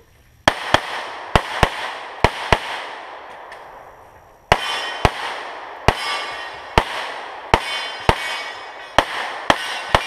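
Rapid semi-automatic pistol fire in quick pairs (double taps), each shot echoing off the woods. It starts about half a second in with three pairs, pauses about two seconds, then runs on in steady pairs through the end.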